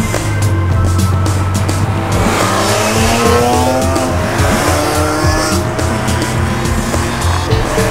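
BMW E46 M3's S54 straight-six engine revving hard, rising in pitch about three seconds in, with tyres squealing as the car slides through a turn; background music plays underneath.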